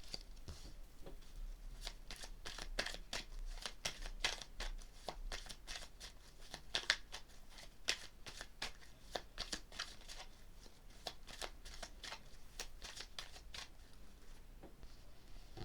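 Tarot deck being shuffled by hand: a long run of quick, light card flicks and rustles that thins out near the end.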